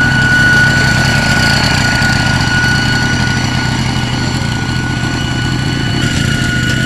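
A two-wheel hand tractor's engine running steadily under load as the tractor churns through a flooded rice paddy on cage wheels, with a steady high whine above the engine note.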